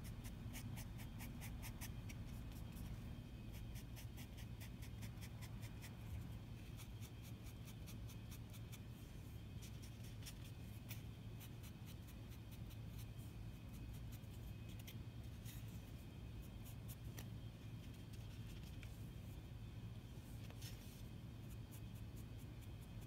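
Foam brush dabbing black paint onto a foam collagraph plate, making quick soft repeated taps for about the first six seconds and then scattered dabs and strokes, over a steady low hum.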